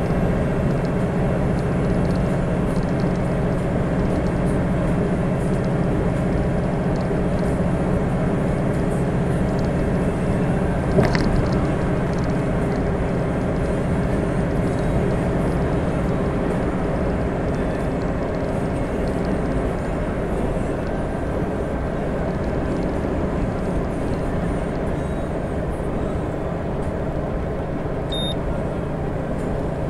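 Iveco truck's diesel engine running steadily while driving, with a brief knock about eleven seconds in and a short high beep near the end.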